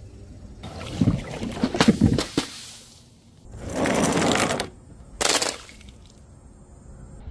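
Bottles shattering with shards clattering: a run of sharp cracks and tinkling about a second in, a longer crunching crash around four seconds, and a short sharp crash just after five.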